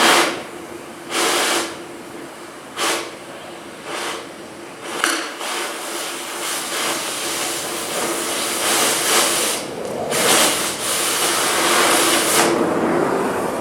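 Quarter-inch steel plates scraping and sliding over one another as they are stacked: several short scrapes in the first few seconds, then a longer grinding scrape that builds and stops abruptly near the end.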